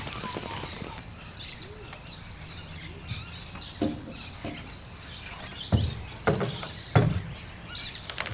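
Birds chirping, with a few dull knocks as a portable air compressor is handled and set down in a boat; the knocks come a little past the middle and are the loudest sounds.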